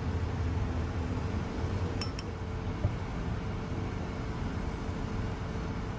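Chopsticks clinking against ceramic bowls as a chicken wing is lifted out: two light clicks about two seconds in and a sharper knock shortly after, over a steady low hum.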